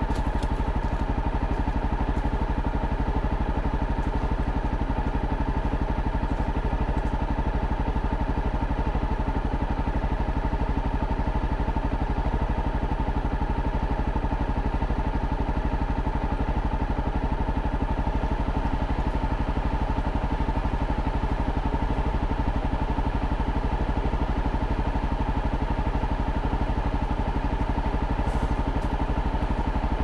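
Honda CRF dual-sport motorcycle's single-cylinder engine idling steadily while the bike stands still.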